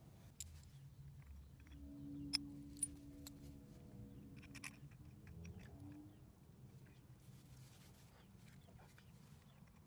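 Faint metal clicks and clinks from handling the Honda Elite 50's CVT parts: a homemade aluminium variator holder tool is fitted against the variator pulley. The two sharpest clicks come about two and a half and three seconds in, and a faint steady hum runs for about a second and a half from about two seconds in.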